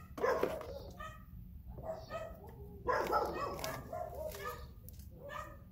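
A dog barking repeatedly, a short bark about once a second.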